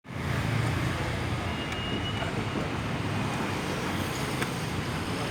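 Mitsubishi 8DC9 V8 diesel engine, marinized for boat use, running at a steady speed with a dense, even low rumble.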